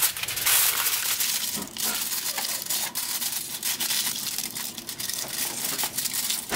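Aluminium foil crinkling and crackling continuously as it is pressed and pinched tight around the outside of a springform pan to seal the edges.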